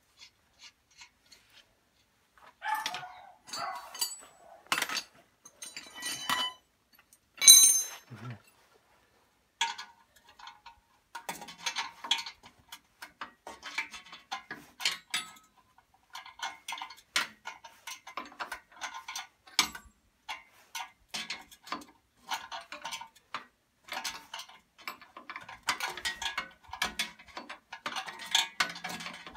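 Metal hand tools working on tractor parts: scattered clinks and one sharp ringing clang of metal on metal about seven seconds in, then a long run of rapid clicking from a ratchet wrench tightening bolts.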